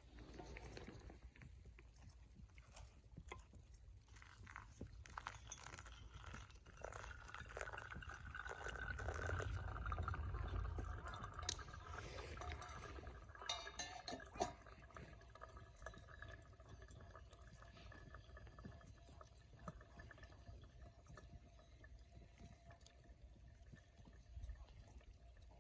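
Hot water being poured and dripping during coffee making, with small clinks and knocks of the utensils and a faint steady hum underneath.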